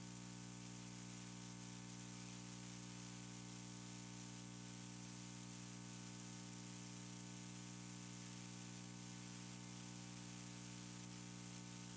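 Faint, steady electrical hum with a hiss over it, unchanging throughout: the recording's own noise floor, with no other sound.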